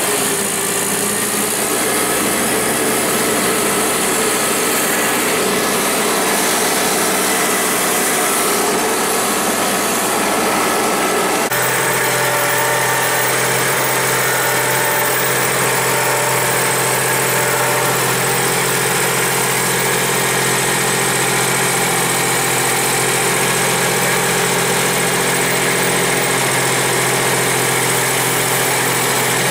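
Kubota B7500 HST tractor's three-cylinder diesel engine running steadily at a constant speed. Its tone shifts abruptly to a slightly different steady note about eleven seconds in.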